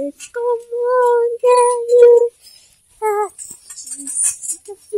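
A high-pitched voice sounding four short held notes at one steady pitch, then a falling note about three seconds in, followed by a brief hiss.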